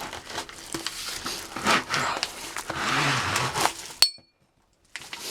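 A metal doorway pull-up bar being lifted out of its packaging: rustling wrapping and light clinks of the metal, ending in a sharp knock about four seconds in, after which the sound cuts off for nearly a second.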